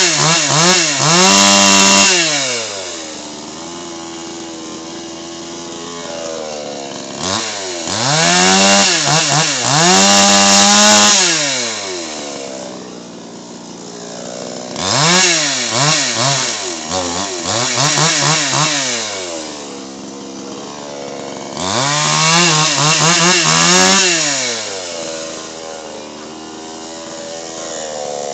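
Hoyoma 22-inch two-stroke chainsaw revved hard in four bursts, its pitch sagging and recovering within each burst, then falling back to a steady idle between them.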